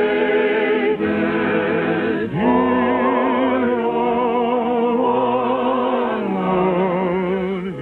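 A slow, romantic song sung with orchestral accompaniment: a singer holds a few long notes with wide vibrato, moving to a new note about a second in, again about two and a half seconds in, and again near the end.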